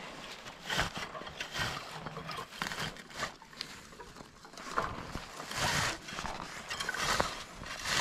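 Handmade berry-picking comb raking through bog cranberry plants: a series of irregular rustling, swishing strokes with small clicks.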